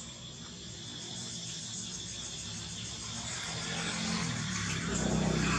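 Outdoor ambience of steady insect chirring, with a low rumble that builds toward the end.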